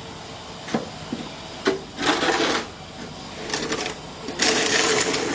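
Snow shovel scraping and scooping through deep snow: a short knock, then three hissy scrapes about a second apart, the last one the longest and loudest.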